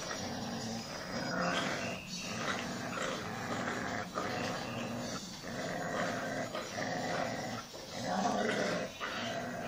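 Dogs play-growling during a tug of war over a toy: a border collie and a young Jack Russell cross puppy. The growls are long, with short breaks every second or two.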